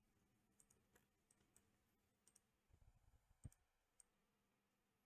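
Near silence with faint, scattered computer mouse clicks, about a dozen, the loudest about three and a half seconds in.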